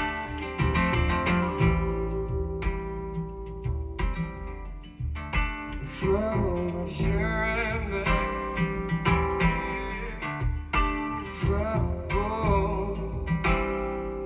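A recorded song played back over Yamaha NS-1000 loudspeakers driven by an EL84 push-pull tube amplifier: strummed acoustic guitar over a steady bass line.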